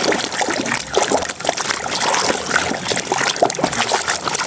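Water trickling and splashing as a muddy toy is washed in clean water, with many small irregular splashes.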